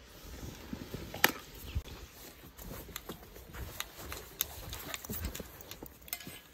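Footsteps crunching in snow: an irregular run of crisp crunches, with one sharper, louder crunch about a second in, over a low rumble.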